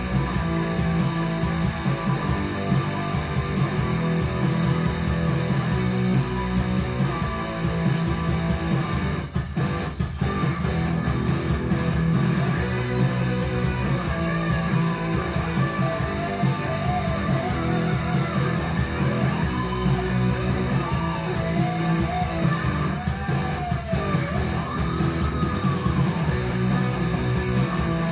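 Instrumental rock music with strummed guitar and bass guitar. A lead line with bending, sliding notes comes in about halfway through.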